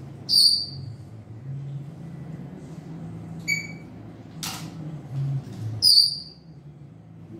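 Clinks of mussel shells and a metal fork against a metal cooking pot while eating mussels: a loud ringing clink just after the start, a softer one about halfway, another loud one near the end, with a dry tap between them.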